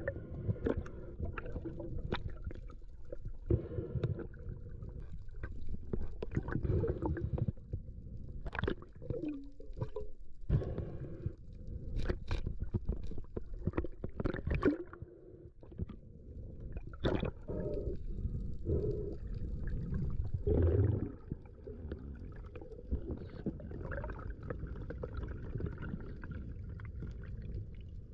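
Muffled underwater sound picked up by a submerged camera: low rushing and gurgling of water with bubbles, broken by scattered sharp clicks.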